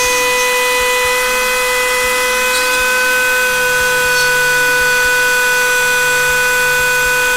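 Ryobi rotary station's flex-shaft rotary tool running with a steady whine as its bit works into a plastic helmet shell.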